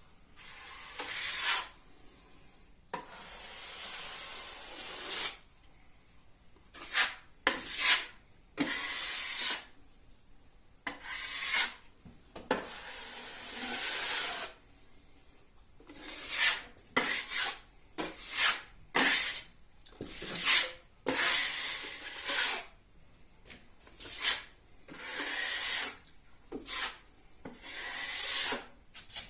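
A filling knife scraping and smoothing drywall filler along a plasterboard joint: a series of scraping strokes, some long and some short and quick, with short pauses between. The filler has bits of grit in it.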